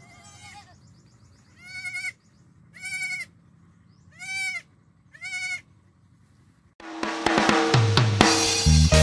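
A young goat bleating five times, each call about half a second long and wavering, the first fainter and the next four louder, about a second apart. About seven seconds in, music with drums and cymbals starts abruptly.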